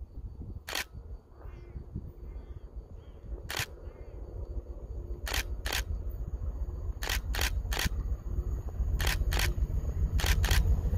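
A camera shutter firing about eleven times, several in quick pairs, over the low rumble of an approaching English Electric Class 40 diesel locomotive that grows steadily louder.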